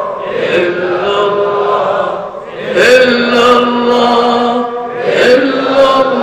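A man chanting an Islamic devotional recitation in long, drawn-out notes that slide between pitches, with a brief pause between phrases.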